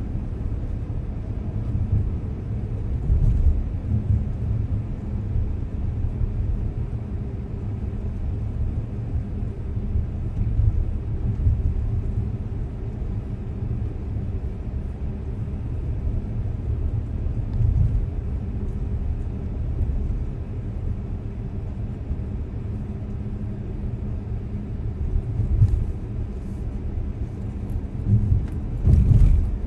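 Car road noise and engine hum heard from inside the cabin while driving at a steady speed: a continuous low rumble with a faint steady hum, and a few brief louder surges, two of them near the end.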